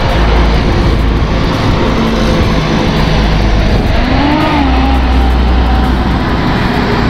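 Road traffic at a bus terminal: an articulated bus's engine running as it pulls across the junction, over a steady low rumble of traffic. About four seconds in, an engine note rises and then falls away.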